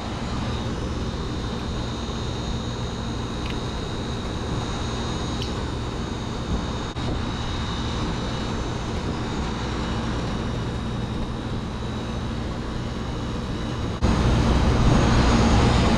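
Steady low mechanical drone of a running vehicle, with a faint high whine above it; it gets suddenly louder about two seconds before the end.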